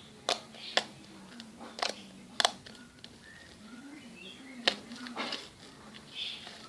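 Slime being squeezed and pressed by hand, giving about half a dozen sharp pops and clicks at uneven intervals.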